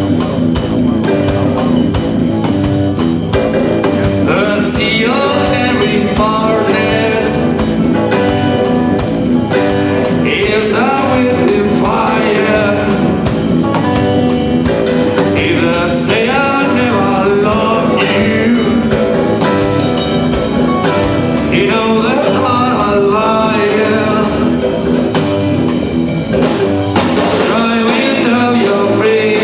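A band playing, with a singer singing over guitar and drums, loud and steady throughout.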